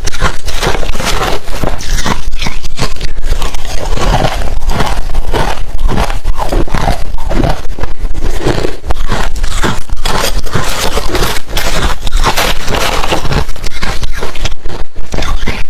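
Close-miked crunching of hard refrozen crushed ice being bitten and chewed, a dense run of loud, irregular cracks and crunches.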